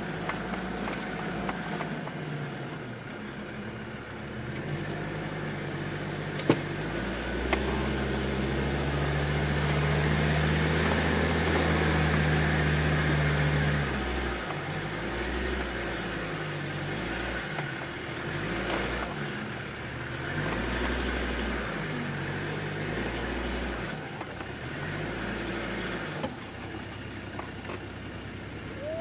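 Land Rover Discovery 2 TD5's five-cylinder turbodiesel, heard from the cabin, working hard and getting louder as the vehicle climbs a steep slope, then rising and falling again and again with the throttle over rough ground. Two sharp knocks come about a quarter of the way in.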